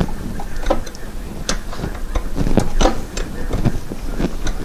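Irregular sharp clicks and clinks of hand tools against the metal shift linkage and its bracket, about six separate knocks spread over a few seconds.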